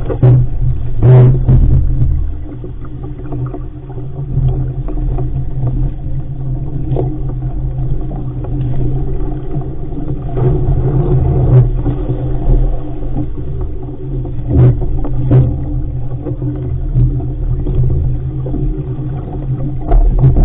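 Steady muffled rumble of wind and water rushing past an RS500 sailing dinghy's hull as it sails heeled over through chop, with scattered knocks and slaps, the loudest about a second in.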